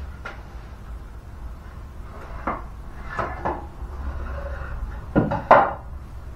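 A wooden board knocking and clunking as it is handled and pulled out: a few scattered knocks, the loudest pair about five seconds in.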